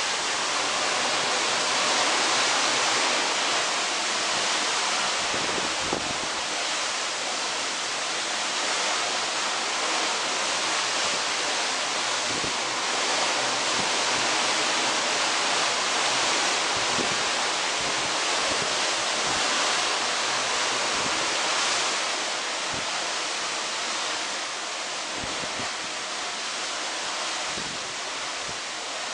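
Steady rushing wash of sea water streaming along the hull of a moving cruise ship, with wind on the microphone and a few low thumps from gusts.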